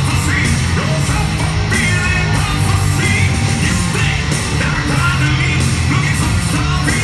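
Hard rock band playing live at full volume: drums with cymbals, electric guitars and a sung, half-shouted lead vocal, heard from among the audience.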